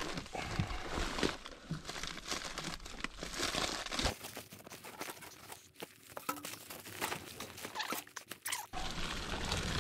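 Crunching and rustling of someone crawling over loose attic insulation, with scattered short knocks and scrapes against the ceiling timbers.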